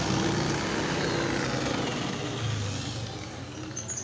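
A motor vehicle engine running with a steady rumble and hiss, dying away over the last second or so.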